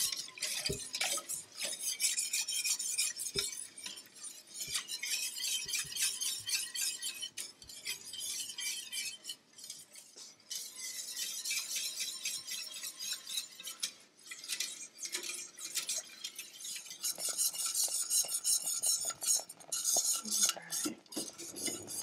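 Wire whisk stirring a thin milky soup mixture in a stainless steel saucepan, its wires ticking and scraping rapidly against the pan, with two short pauses. The mix is being cooked until it thickens.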